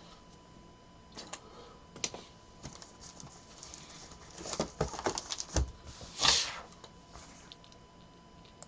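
Sealed cardboard trading-card boxes being handled and marked on a table: scattered light taps and knocks, a quick run of knocks around the middle, and a short, loud scrape or rustle about six seconds in.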